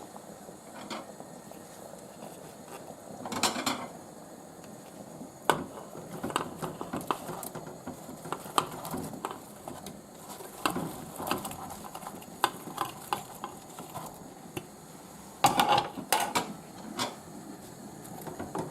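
Metal utensil clinking, knocking and scraping against a pan as meatballs are transferred into the tomato sauce, in scattered knocks with two louder scraping bursts, one about three seconds in and one near the end.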